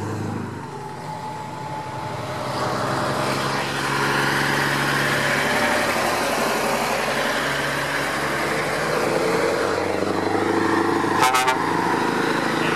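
Heavy diesel lorries driving slowly past, engines pulling, with traffic noise swelling a couple of seconds in. A short horn toot sounds about eleven seconds in as a Scania 143 with its V8 engine comes by.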